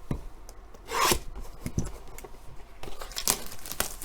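Cardboard blaster box of trading cards being opened and handled: irregular rasping rubs and scrapes, a louder one about a second in and a cluster near the end.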